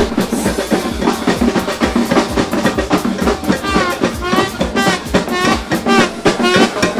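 Live brass-and-drum band playing an upbeat tune with a steady, driving beat; a wavering melody line comes in over the drums about halfway through.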